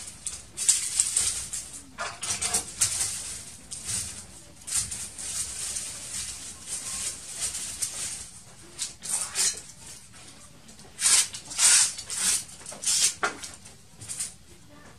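Dry brushwood twigs rustling and snapping as they are broken and packed by hand into a tandır pit oven as kindling. The rustles come irregularly, and the loudest are about eleven to twelve seconds in.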